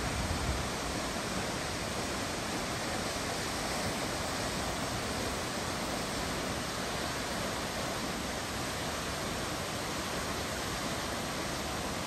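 A 177-foot waterfall, South Falls, pouring steadily into its plunge pool: an even, unbroken rushing noise.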